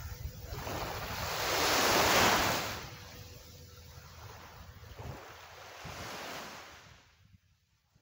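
Small waves breaking and washing up a sandy beach: a surge of wash that peaks about two seconds in, a smaller one later, then the sound cuts off abruptly about seven seconds in.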